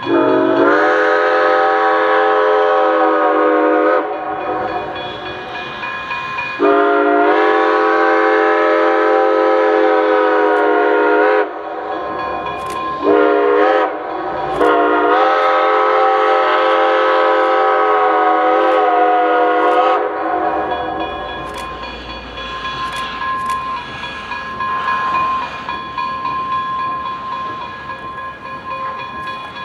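A 4-4-0 steam locomotive's Reading six-chime whistle blowing the grade-crossing signal: two long blasts, a short one and a long one, each sliding up to pitch as it opens. After the last blast the train rumbles through the crossing while the crossing signal's bell rings steadily.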